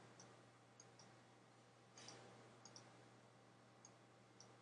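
Faint computer mouse clicks, several in quick pairs, scattered over a near-silent room with a low steady hum.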